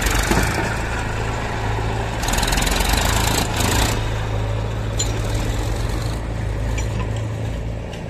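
Massey Ferguson tractor's diesel engine running under load as it pulls a loaded trolley away, louder for a couple of seconds about two seconds in.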